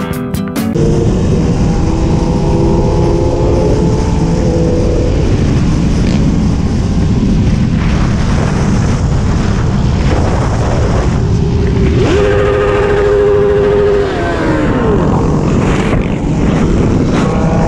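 Motorcycle engines running at highway speed, heard through heavy wind noise on a helmet-camera microphone. Engine pitch rises and falls as the bikes rev.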